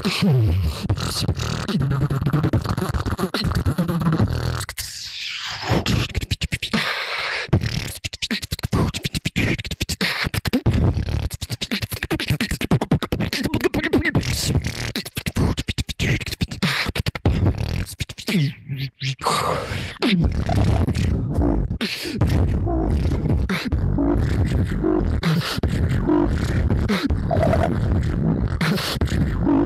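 Solo beatboxing: a fast stream of mouth-made kicks, snares and hi-hat clicks with bass hums, heard through an online voice chat. Brief breaks come about five and nineteen seconds in, and in the last third a steady deep bass runs under the beat.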